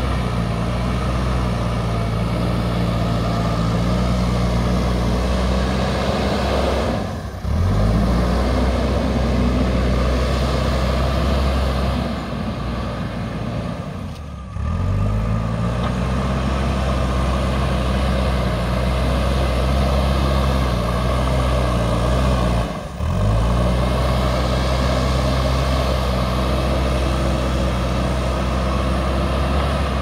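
JCB backhoe loader's diesel engine running steadily at working revs while the front loader bucket pushes soil. The engine speed dips briefly three times, roughly a quarter of the way in, halfway and about three-quarters of the way through, then picks back up.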